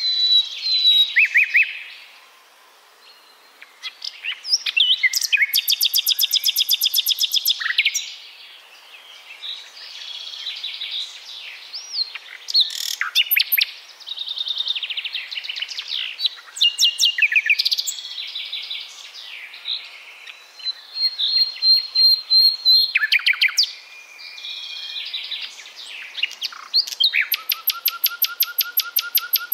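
Common nightingale singing: varied phrases of clear whistles, sliding notes and very fast rattling trills of repeated notes, with short pauses between phrases.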